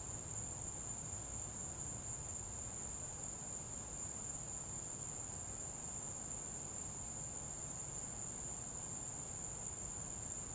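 Insects, such as crickets, trilling in one steady, unbroken high-pitched chorus over a low background rumble.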